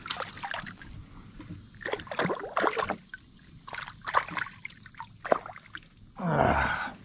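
Water splashing and knocks against a small fishing boat as a hooked crappie is brought aboard. The sound comes as a series of short irregular splashes and clicks, with a louder rushing splash near the end.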